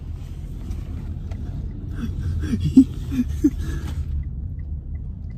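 Steady low rumble of car road and engine noise inside the cabin. A few brief voice sounds come in about two to three and a half seconds in.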